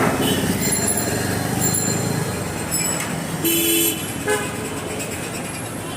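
Street traffic noise with a vehicle horn tooting once, briefly, about three and a half seconds in.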